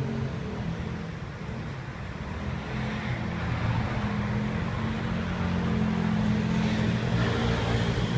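Road traffic: a motor vehicle's engine running nearby, a low hum that grows louder about three seconds in.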